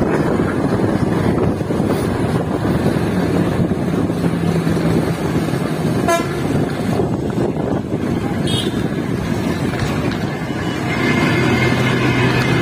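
Steady engine, tyre and wind noise from inside a moving bus. A vehicle horn sounds for about two seconds near the end.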